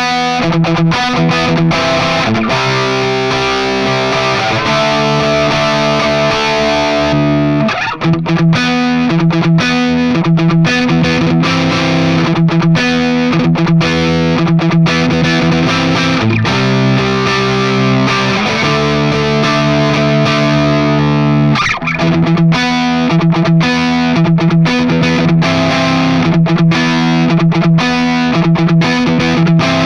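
Gibson Les Paul Special SL electric guitar played through distortion, ringing chords held for a second or two at a time and changing, with brief breaks about eight and twenty-two seconds in.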